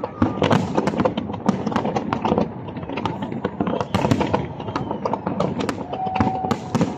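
Aerial fireworks display: a dense, rapid barrage of shell bursts and crackling, several bangs a second with no pause.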